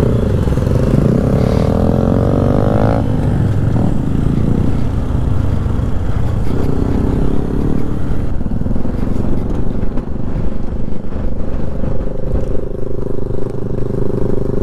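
Motorcycle engine pulling away, its pitch rising for a couple of seconds, dropping sharply at a gear change, then rising again, with wind rushing on the microphone. Near the end the engine settles to a steady, even pitch as the bike slows and pulls up.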